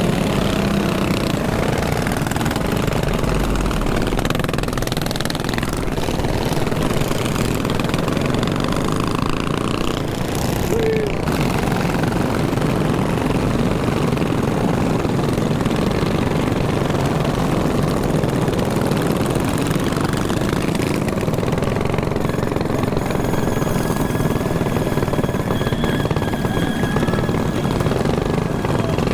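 Mini bike engines running loudly and steadily.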